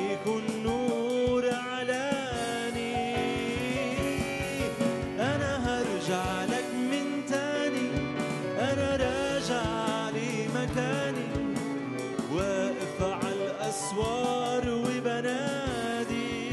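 A male voice singing an Arabic Christian hymn with ornamented, bending vocal lines, over a small live band with violin.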